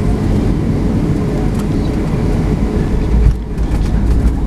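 Cabin noise of a Boeing 737-700 at touchdown: a steady loud rumble of engines and rushing air, broken about three seconds in by a sudden thump as the main wheels meet the runway and the wing spoilers deploy, followed by rattling.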